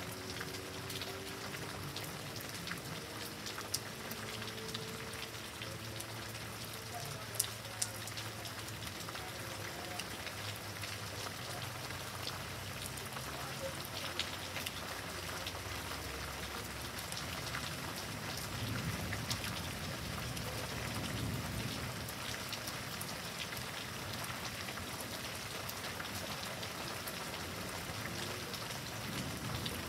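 Steady rain falling in a thunderstorm, a continuous hiss of drops with a few sharper drip ticks in the first several seconds. A low rumble swells and fades about two-thirds of the way through.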